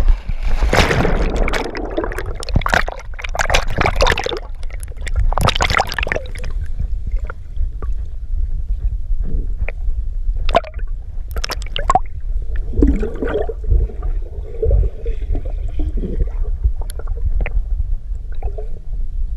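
Pool water splashing close around a camera at the surface. The sound then turns to a muffled underwater rumble and gurgling with scattered clicks as the camera goes under.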